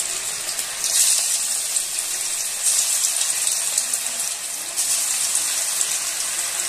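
Marinated chicken 65 pieces deep-frying in hot oil: a steady hissing sizzle that swells each time another piece is dropped in, about every two seconds.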